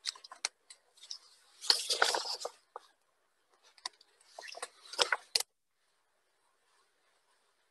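Scattered clicks and rustling handling noises close to the microphone, in two louder clusters about two and five seconds in.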